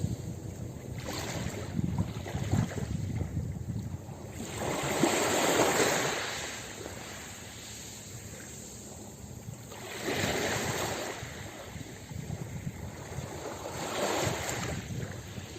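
Ocean waves breaking on a beach, the surf swelling three times: the biggest wave about five seconds in, then smaller ones about ten and fourteen seconds in, with a low rumbling wash of water in between.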